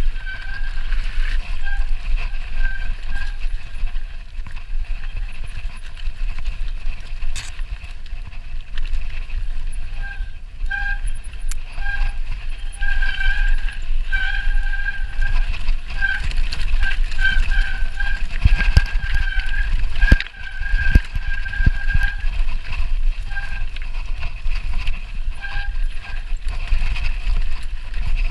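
Mountain bike running fast down a rocky, loose mountain path: wind rumble on the handlebar camera's microphone and the constant rattle of tyres, frame and chain over stones, with a few harder knocks from rocks. A pitched squeal comes and goes over it.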